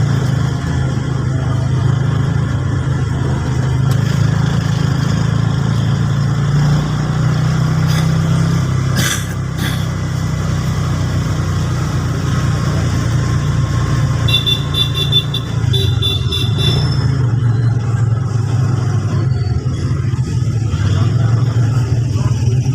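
A motor vehicle's engine running with a steady low drone, with a brief high chirping about two-thirds of the way through.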